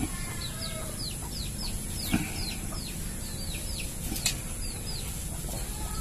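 Small birds chirping in a quick, steady series of short, high, falling chirps. Sharp clicks come near the start, about two seconds in and about four seconds in.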